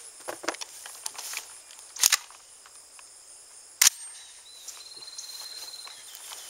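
Rifle fire from an AR-15 short-barreled rifle shooting a 5.56 mm M193 round into an AR500 steel plate: a close pair of sharp cracks about two seconds in, then a single loud crack just before four seconds in. Insects trill steadily in the background.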